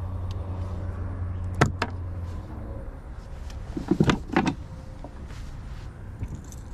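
A low steady hum that stops about two and a half seconds in, with a couple of sharp clicks. Then a cluster of knocks around four seconds in as someone sits down in a plastic boat.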